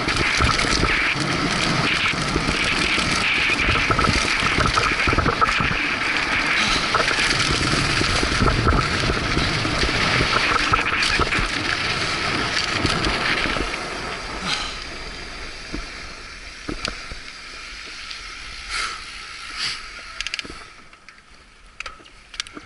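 Mountain bike descending a dirt trail: rushing wind on the helmet camera's microphone mixed with tyre noise over dirt and knocks and rattles from the bike. About fourteen seconds in the noise drops off sharply as the bike slows onto pavement, leaving scattered clicks and light knocks.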